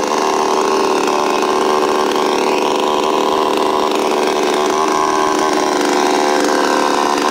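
Brand-new 52cc Chinese Stihl-clone two-stroke chainsaw idling steadily on the ground after its first start.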